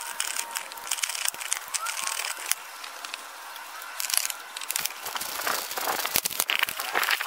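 Hand socket ratchet clicking in quick runs as 10 mm bolts on a plastic air intake box are undone, with light knocks and scrapes.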